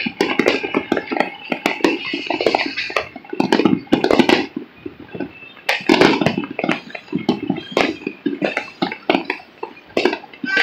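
Many fireworks and firecrackers going off across a town at once: a dense, irregular string of sharp bangs and pops with no pause.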